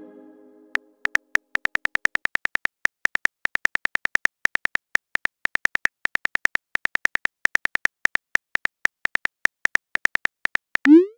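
Simulated phone keyboard clicks: rapid, evenly spaced taps with a slight pitched ring, about six a second, as a text message is typed out. Near the end a short rising swoosh sounds as the message is sent.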